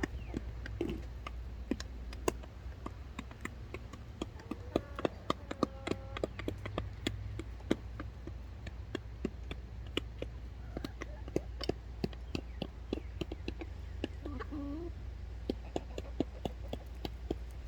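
Chickens pecking at feed: a dense run of quick, irregular taps, with a few short clucks now and then over a steady low rumble.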